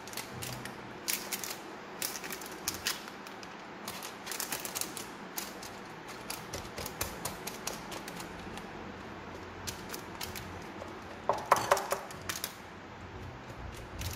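A spatula pressing and spreading a sticky boondi-and-ghee sweet mixture into a parchment-lined metal tray: irregular soft clicks and scrapes, with a cluster of louder knocks about eleven to twelve seconds in.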